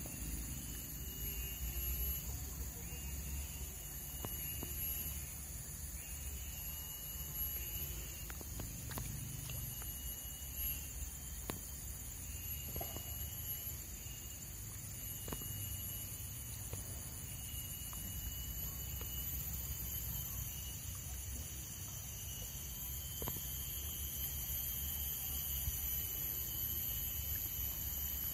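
Outdoor insect chorus: a steady high-pitched chirring with a repeating pulsed trill in its highest tones, over a low rumble, with a few faint ticks.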